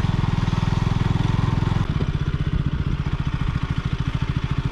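KTM RC 200's single-cylinder four-stroke engine running as the bike is ridden along a rough dirt track, a steady rapid beat of firing pulses. The sound changes abruptly a little under two seconds in, with less hiss above the engine beat.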